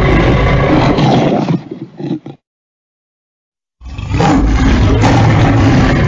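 Lion roaring loudly. The roar fades out about two seconds in, there is a second or so of complete silence, and another roar starts near four seconds.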